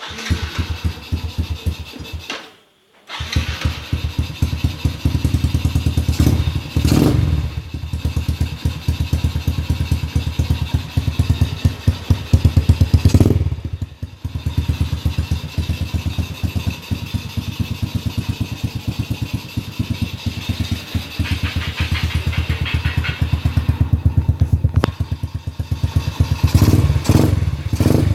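Yamaha Lagenda 110ZR underbone motorcycle running through an Apido Racing aftermarket exhaust on a standard engine, idling with a fast, even beat. The throttle is blipped a few times, briefly raising the revs about 7 and 13 seconds in and again near the end. The sound drops out for about half a second near the start.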